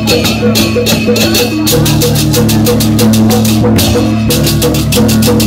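Balinese baleganjur gamelan playing loudly: rapid clashing of ceng-ceng cymbals and drumming over a repeating gong-chime figure and sustained gong tones.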